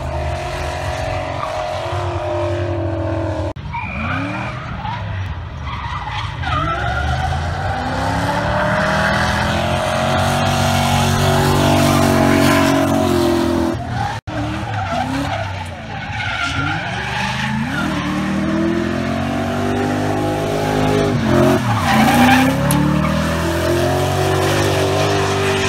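Drift car engine revving hard, its pitch rising and falling again and again as the tyres skid and squeal through a slide. The sound breaks off abruptly twice.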